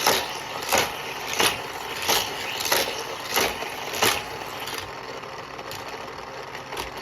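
Die-cast Hot Wheels cars running on plastic toy track, clacking sharply and evenly about every two-thirds of a second, then fading to a few faint clicks after about four seconds.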